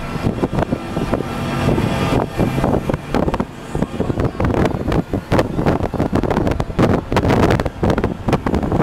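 Road and engine noise of a moving car, with wind buffeting the microphone in irregular gusts.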